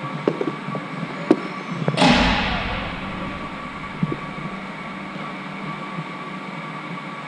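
A few sharp clacks, then one loud bang about two seconds in that rings out and fades slowly, and a lighter knock a couple of seconds later, over a steady hum.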